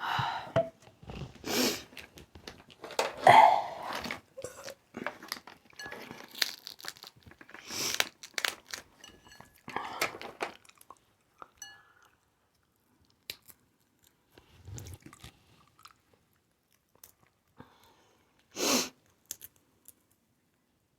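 Mouth sounds of someone eating seafood boil: chewing, crunching and wet smacks, dense for the first ten seconds or so, then sparser. A short, louder sound comes near the end.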